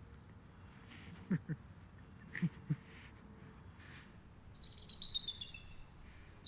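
A songbird sings a quick run of high chirps that fall in pitch, about four and a half seconds in. Before that come a few short, low sounds that drop in pitch.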